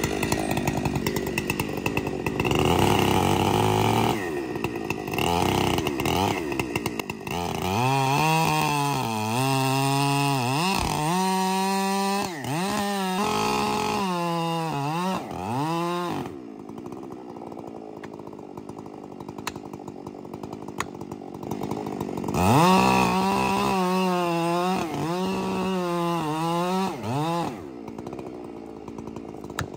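Large two-stroke chainsaw cutting a fir stump. It runs under load at first, then its engine revs up and down over and over, drops to a quieter idle for several seconds, and revs up and down again near the end.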